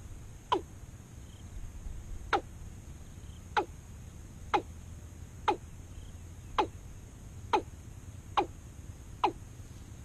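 Watercock calling: a series of sharp, quickly falling notes, about one a second, nine in all and spacing out a little toward the end.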